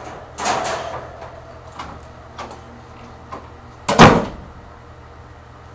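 A few light knocks and clatter, then a single loud bang about four seconds in.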